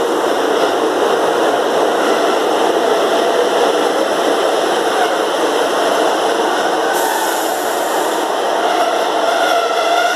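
A GWR Class 150 Sprinter diesel multiple unit running close past the platform as it draws into the station. Its wheels and underfloor diesel engine make a loud, steady rumble, and a faint whine creeps in near the end.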